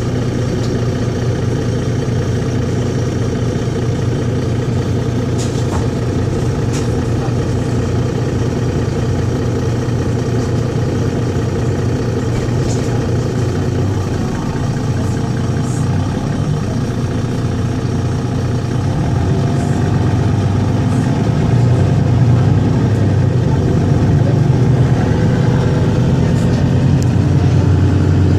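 Mercedes-Benz Citaro Facelift city bus heard from inside the passenger cabin: its diesel engine running steadily with a low hum as the bus drives at low speed. It gets a little louder in the last third, with a couple of light clicks a few seconds in.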